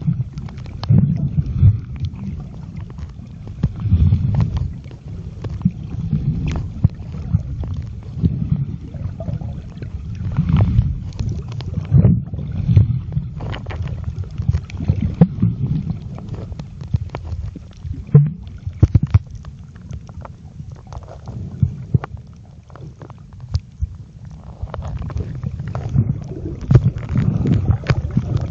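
Muffled underwater rumble and sloshing of water moving around a submerged phone's microphone, rising and falling irregularly. Scattered sharp clicks and knocks run through it.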